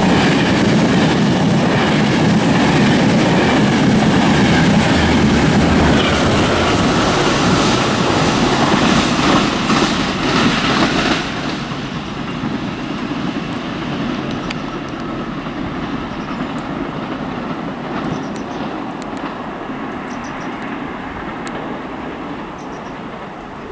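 Enterprise push-pull passenger train running through the station without stopping: De Dietrich coaches led by driving van trailer 9004, pushed by Class 201 diesel locomotive 8208. The wheels clatter loudly over the rail joints for about the first eleven seconds, then the sound fades steadily as the train draws away.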